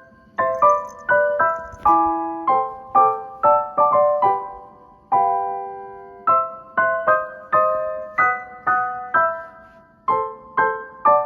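Background music: a solo piano playing a tune of struck notes and chords, each note fading after it is struck, with longer held notes about five seconds in and again near ten seconds.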